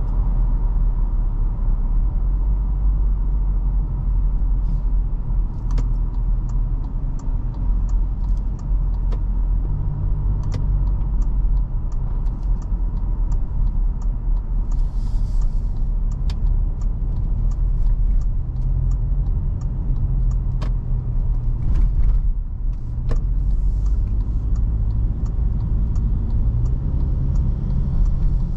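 A 2021 Toyota Fortuner 2.7 petrol SUV being driven, heard from the driver's seat: its naturally aspirated four-cylinder engine and tyres make a steady low rumble. A faint regular ticking, about two a second, runs through most of it.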